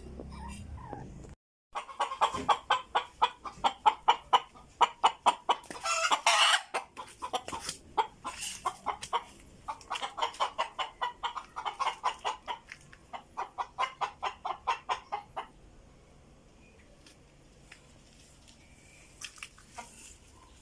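Native hen cackling in long runs of rapid clucks, about four or five a second, with a louder drawn-out squawk partway through; the runs stop a few seconds before the end. A cackle like this is typical of a hen that is laying or has just laid an egg.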